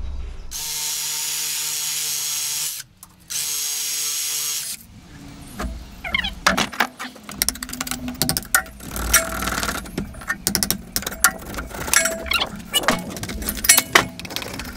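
A steady mechanical whirr runs for about four seconds with a short break in the middle. A lump hammer then knocks irregularly against masonry and a steel prop, some strikes leaving a short metallic ring.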